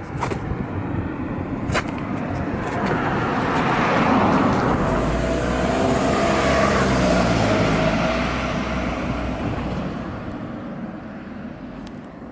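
Two-stroke scooter engine with a long expansion-chamber exhaust running, its sound swelling to a peak for a few seconds and then fading away, with its pitch falling as it fades.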